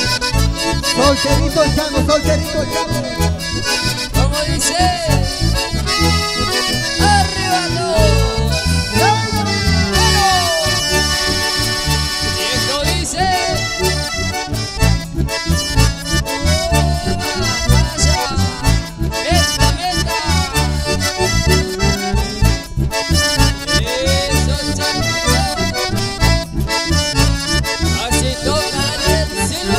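Live instrumental passage of Latin American folk music led by a bandoneon and an accordion playing the melody, with acoustic guitar accompaniment keeping a steady, even beat.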